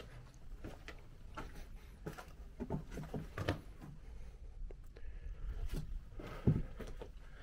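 Footsteps on stony ground: irregular scuffs and crunches, with one heavier step about six and a half seconds in.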